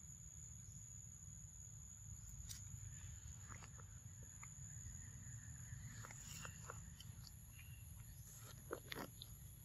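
Quiet outdoor ambience: a steady high-pitched insect drone over a low wind rumble, with scattered faint clicks and rustles, the loudest near the end.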